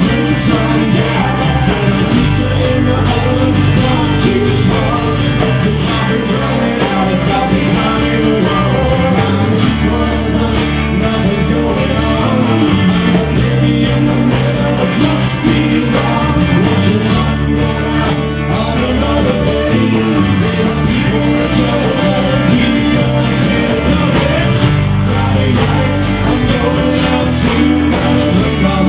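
Live band music: a guitar-led rock song played at a steady loud level, with a singing voice.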